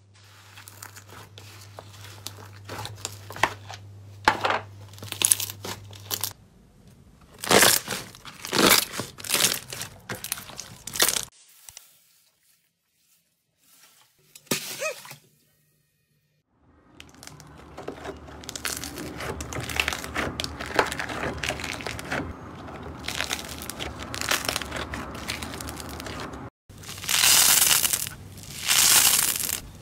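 Slime being squeezed, stretched and pressed by hand, giving crackling, popping and squelching sounds in a run of separate clips, with a quiet gap in the middle. Near the end come three loud, drawn-out squishes.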